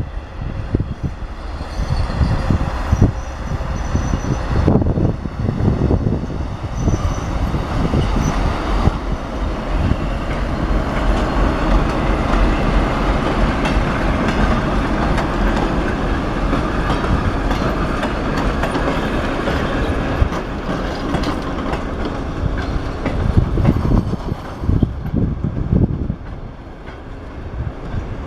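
TEP70 diesel passenger locomotive and its rail flaw-detector car moving along the track: a heavy diesel rumble mixed with wheel and rail noise and scattered knocks, fullest through the middle and falling away about 25 seconds in.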